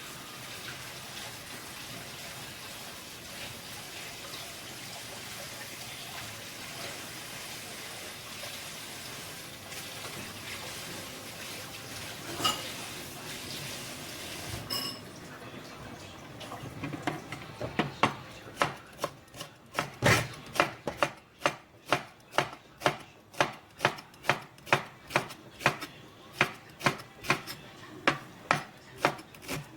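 Steady running water for the first half, a clink, then a click as it stops. After that a kitchen knife chops on a cutting board in an even rhythm of about two strokes a second, preparing ingredients for tteokbokki.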